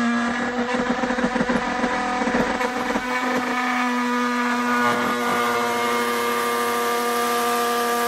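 Cordless oscillating multi-tool running at speed, its blade cutting into a carpeted boot trim panel. It makes a steady high buzz that is rough and uneven for the first few seconds as the blade bites, then runs smoothly.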